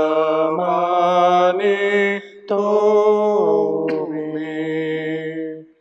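A slow Marathi devotional hymn sung in long held notes, pausing briefly about two seconds in and ending just before the close.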